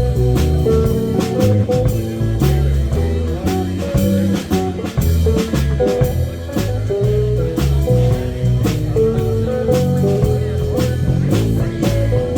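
A blues band playing an instrumental break: a guitar carries the melody over bass guitar and a drum kit keeping a steady beat.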